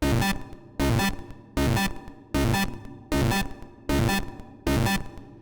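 A distorted synth sound made in Serum 2 for hard techno, playing as a loop. The same pitched hit repeats evenly about once every 0.8 seconds, seven times.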